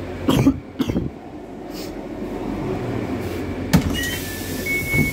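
Knocks and clicks of a train compartment door and its lever handle in the first second, a sharp click nearly four seconds in, then an alternating two-tone electronic beep starts: a passenger coach's door-closing warning signal. A steady low hum of the coach runs underneath.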